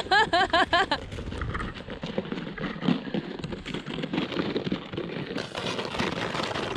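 A short run of laughter, then steady crunching and scraping in snow, a dense crackle of small clicks and rasps.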